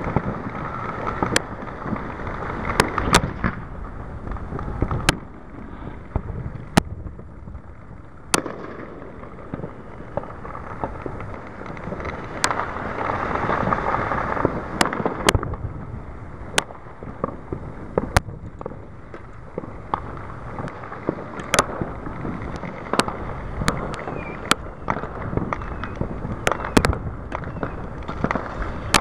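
Fireworks going off: many irregular sharp bangs and pops, coming thicker in the second half, over a steady background rumble.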